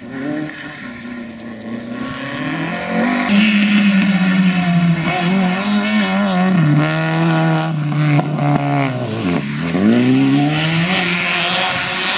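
Small rally cars' engines, a red Fiat Cinquecento among them, revving hard at full throttle. The pitch climbs and then drops at each gear change, and about nine seconds in it falls steeply and climbs again as the car lifts off and re-accelerates.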